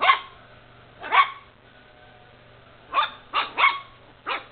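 Havanese puppy barking in short, sharp barks: two spaced a second apart, then a quick run of three about three seconds in and one more near the end.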